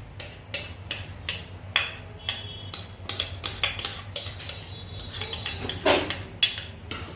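Metal spoon clinking and scraping against a metal cooking pot in a string of irregular knocks, about two or three a second, while stirring lentils into the vegetable mixture.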